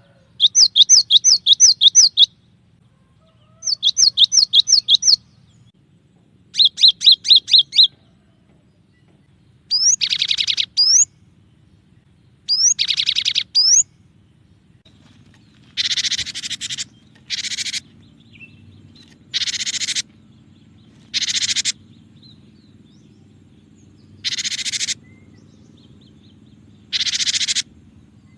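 Cinereous tit (gelatik batu) singing: for the first eight seconds, three quick runs of sharp repeated notes, then two denser trilled phrases with rising sweeps. From about halfway on, these give way to harsh, buzzy churrs about a second long, repeated every couple of seconds.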